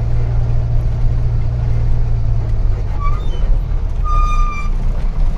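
Truck engine running with a steady low rumble. A brief high-pitched tone sounds about three seconds in, then a slightly longer one about a second later.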